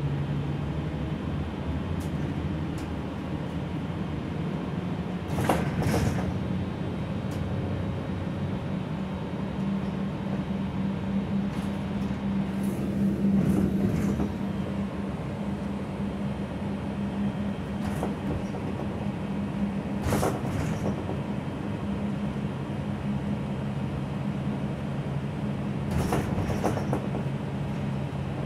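Gillig low-floor city bus underway, heard from inside the cabin: a steady engine and drivetrain drone whose low hum shifts in pitch a few times, with short rattles and knocks from the bus body every several seconds.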